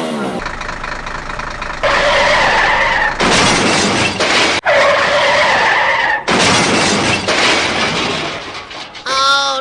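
Car tyres screeching in long skids, with stretches of harsh crashing noise between them. Near the end comes a short pitched call that wavers up and down.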